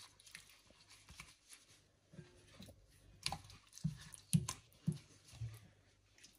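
A gloved hand squishing raw chicken pieces through a thick marinade in a glass bowl: soft, irregular wet squelches and slaps, sparse at first and coming faster and louder in the second half.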